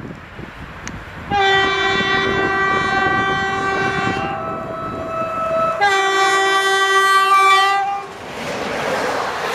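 Train horn sounding two long blasts, the second starting about a second and a half after the first. A steady rushing noise follows near the end.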